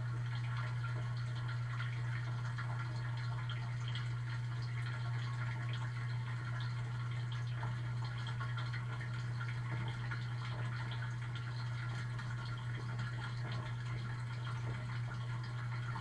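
Running dishwasher heard from inside the tub during the wash: water spraying and spattering onto the dishes over a steady low hum.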